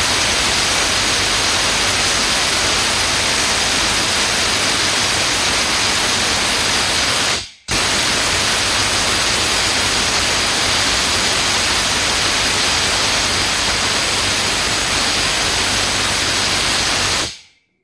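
Cordless impact wrench hammering at full power on a nut tightened to 700 Nm, failing to break it loose. It sounds as a loud, even rush of noise, stops briefly about seven and a half seconds in, then starts again and runs until shortly before the end.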